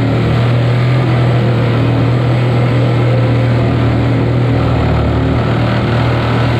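Corded Bosch jigsaw running steadily at a constant pitch, its blade cutting up through a boat's coach roof.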